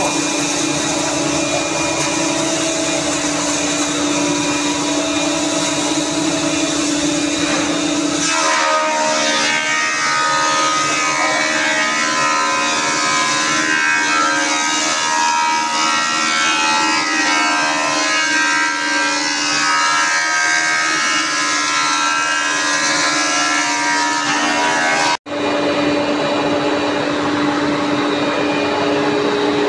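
Woodworking machines running steadily in a carpentry shop, a loud whining hum with several steady tones. About eight seconds in the sound becomes busier and shifting. About 25 seconds in it breaks off for an instant and resumes.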